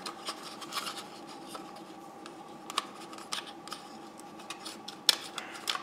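Scattered light clicks and rubbing of plastic as hands handle a small toy quadcopter's body and work open its battery hatch.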